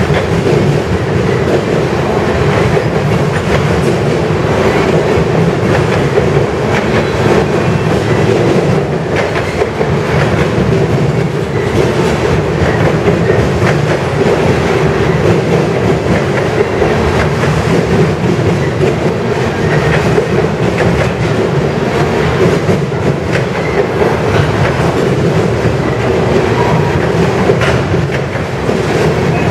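Freight train of tank cars rolling past: a steady rumble of steel wheels on rail, with clickety-clack from the wheels over the track.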